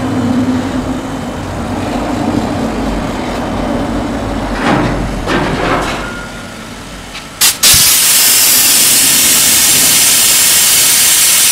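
Laser cutting machine running while it cuts acrylic: a low steady hum, then about seven and a half seconds in a sharp pop, and a loud steady hiss takes over.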